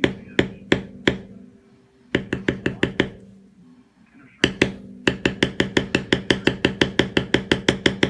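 Mallet striking a leather stamping tool to tool a leather belt: a run of sharp knocks about three a second, two short pauses, then a faster run of about five knocks a second.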